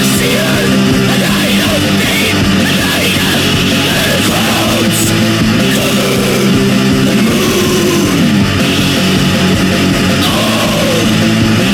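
Heavy metal band playing: distorted electric guitar chords held over drums, dense and loud throughout, with one chord sliding down in pitch about eight seconds in.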